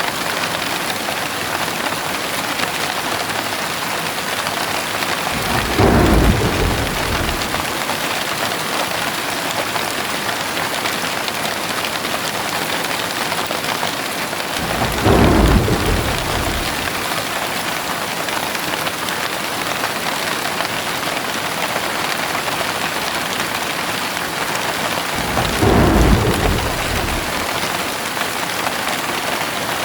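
Heavy rain falling steadily, with three brief low thunder rumbles about ten seconds apart.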